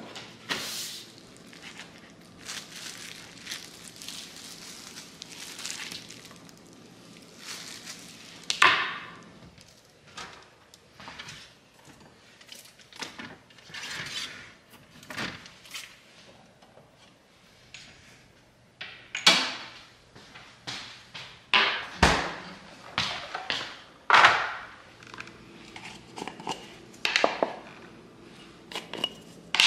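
Kitchen prep handling sounds: a sheet of paper rustling as it is spread on a wooden cutting board, then bottles and small glass jars being picked up and set down, with sharp clinks and knocks, the loudest in the second half.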